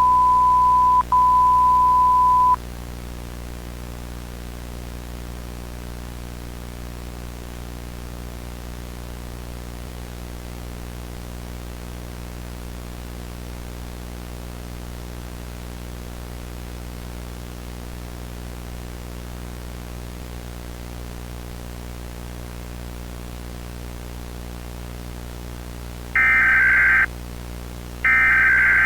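Broadcast emergency-alert audio: a steady high test-tone beep for about two and a half seconds, broken once briefly, then a constant low electrical hum with faint hiss. Near the end come harsh buzzing data bursts about a second long, one every two seconds, like the coded header bursts that open an emergency alert.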